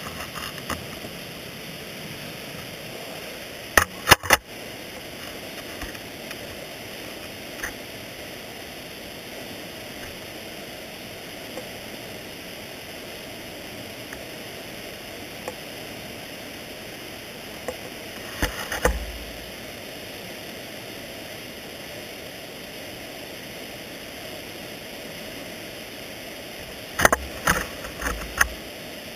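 Dry-tooling ice axe picks knocking and scraping on rock, carried straight up the shaft to the camera mounted on it: a sharp double knock about four seconds in, another knock with a dull thud about two-thirds of the way through, and a quick cluster of knocks near the end. Between the strikes a steady hiss.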